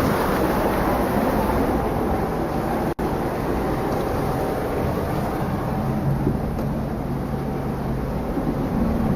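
Sea Ray 400 Sedan Bridge cruiser's engines running steadily at idle after being started, with a low hum and some wind on the microphone; the sound drops out for an instant about three seconds in.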